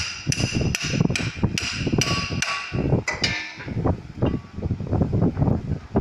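Hammer striking the end of a steel wrench on a walking tractor's flywheel nut to tighten it: about eight sharp, ringing metal blows, two to three a second, that stop a little past the middle, followed by duller knocks of the wrench being handled against the flywheel.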